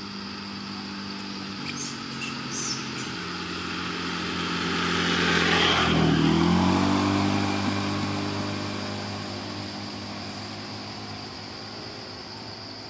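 A motor vehicle drives past. Its engine grows louder to a peak about six seconds in, drops in pitch as it passes, then fades away.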